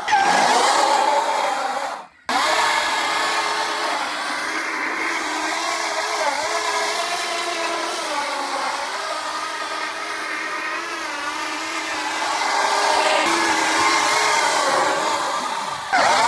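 Admit Jet Armor electric dirt bike doing a burnout in circles: its rear tyre spins and squeals on the asphalt over the electric motor's whine, the pitch wavering up and down, with a brief break about two seconds in.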